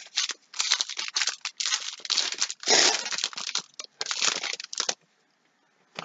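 Foil wrapper of a 2018 Donruss football card pack being torn open and crinkled by hand, a busy run of crackling and tearing that stops about five seconds in.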